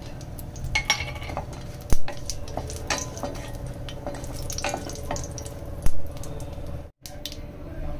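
Whole dried red chillies and spices frying in hot oil in a stainless steel kadhai, with a wooden spatula stirring and scraping, a faint steady sizzle with small crackles. There are two sharp knocks, about two and six seconds in.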